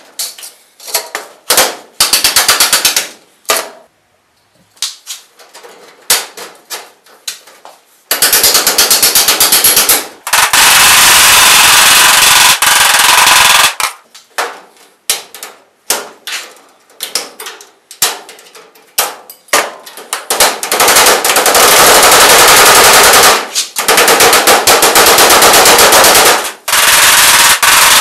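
Hammer blows on galvanized sheet-metal ductwork, driving the cleats home along the duct seams, sped up in fast-forward so the strikes run together into a rapid rattling stream. Long loud runs are broken by a few short pauses.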